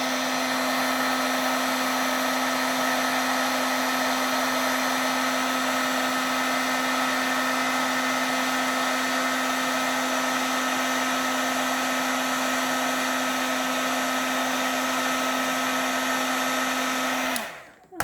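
Embossing heat tool running, its fan blowing hot air steadily with a hum and a whine, melting clear embossing powder; it is switched off and cuts out suddenly near the end.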